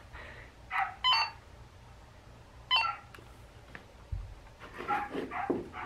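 Midland walkie-talkie beeping: two short electronic tones, about a second in and again near three seconds, as its button is held down to switch the radio off.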